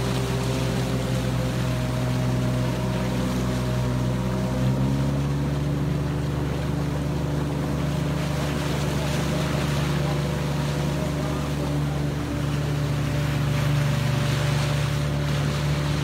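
Boat's outboard motor running steadily under way through floodwater, its pitch stepping up slightly about four and a half seconds in, with water rushing past and wind on the microphone.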